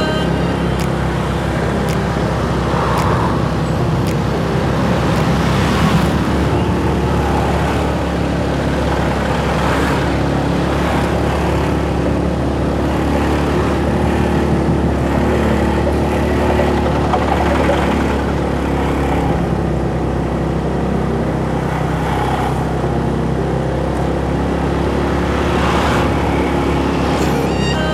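Motorcycle engine running steadily while riding, with wind noise on the microphone and the road noise of surrounding traffic.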